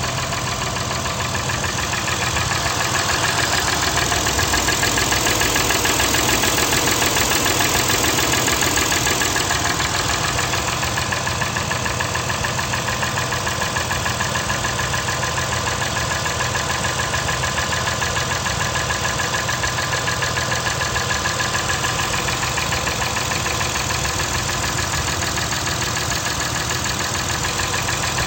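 2008 Acura TL's V6 engine running, probably at idle, with a fast, even knocking tick at engine speed, which the Acura dealer diagnosed as piston slap in cylinder #5 and the owner suspects may be a badly adjusted valve.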